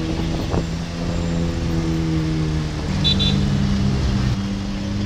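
Ferrari 458's V8 engine running at low, fairly steady revs, its pitch stepping up slightly about three seconds in. Two short high beeps sound at the same moment.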